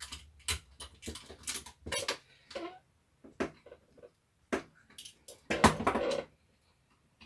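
Irregular small clicks and knocks of a screwdriver bit, screws and the plastic drill housing being handled while the last housing screws are taken out, with a louder clatter about five and a half seconds in.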